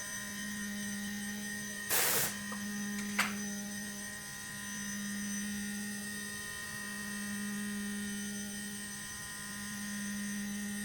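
Hobby CNC spindle running at a steady speed while milling aluminium, a constant hum with overtones. A short hiss comes about two seconds in and a sharp click a second later.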